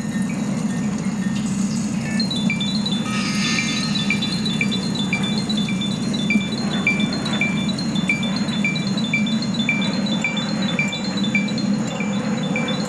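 A performance soundtrack of bright chime notes repeating evenly, about twice a second, with quicker, fainter high tinkling notes above them, over a steady low drone.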